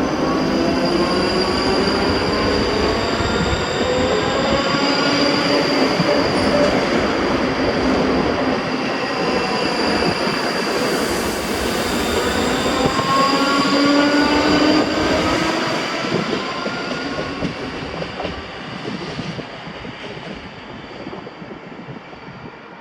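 Electric passenger train pulling away, its motors whining in rising tones over the rumble of wheels on rail; the sound fades away over the last few seconds.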